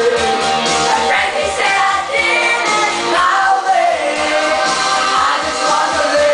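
Several people singing together into microphones over a loud rock-pop backing track, karaoke-style.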